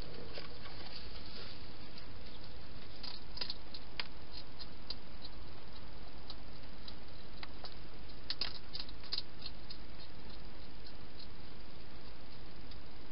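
A hedgehog eating inside a plastic feeding box: scattered sharp clicks and crunches, in clusters about three to four seconds in and again about eight to nine seconds in, over a steady hiss.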